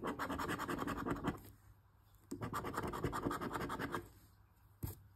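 A coin scratching the latex coating off a scratch-off lottery ticket in two quick runs of rapid back-and-forth strokes, with a short pause between them and a single click near the end.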